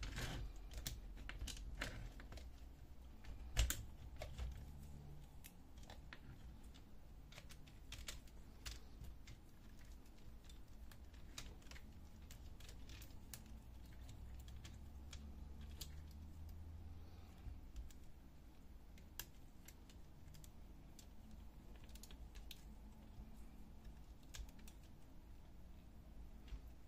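Light, irregular clicks and knocks of plastic and metal fuser-unit parts being handled and fitted together by hand, with one sharper knock a few seconds in.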